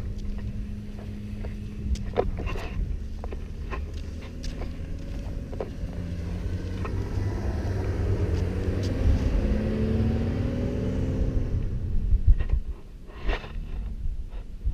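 Audi Q7 driving on sand, its engine running under load and revving up with rising pitch through the middle before easing off near the end, with scattered knocks and thumps.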